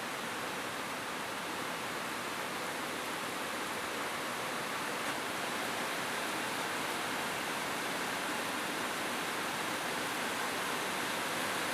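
Steady rain falling on a roof: a dense, even hiss in which no single drops stand out.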